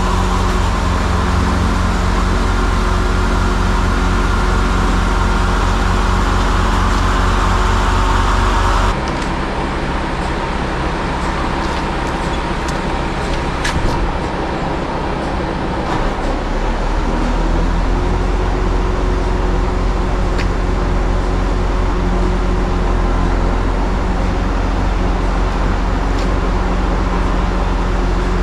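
A truck's diesel engine running steadily to drive its loading crane, with a higher whine over it for the first third. A little past halfway the engine speed steps up as the crane is worked by remote control, with a couple of short clicks before that.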